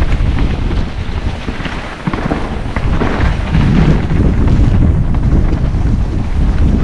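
Wind rumbling over the microphone of a camera carried on a mountain bike riding a trail, with short knocks and rattles from the ground.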